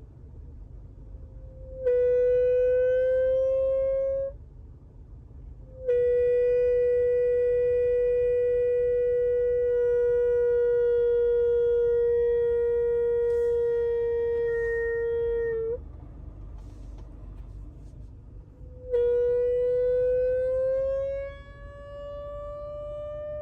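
A/C expansion valve in a 2019 Acura RDX moaning after the vehicle is shut off, a horn-like tone that comes three times. The middle moan holds steady for about ten seconds; the first and last rise slightly in pitch, and the last fades to a quieter tone. The noise comes after a long A/C run and is the sign of a faulty expansion valve, which the owner found to be the culprit.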